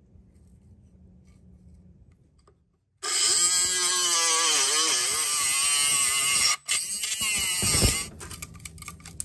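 Dremel rotary tool with a cutoff wheel grinding through a metal chimney fitting, cutting the rivets and tack welds that hold its deck mount plate. It starts about three seconds in, runs as a loud whine whose pitch dips and wavers as the wheel bites, and stops about eight seconds in. Light metallic clicks follow as pliers work the loosened metal.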